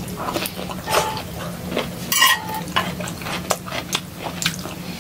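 Close-up eating sounds: broccoli and greens being chewed, with short, irregular clicks and clinks of a knife and fork against a plate.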